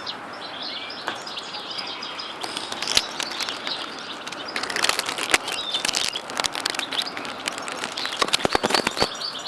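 Common nightingale nestlings giving short, high begging chirps, with bursts of rustling and crackling clicks about halfway through and again near the end.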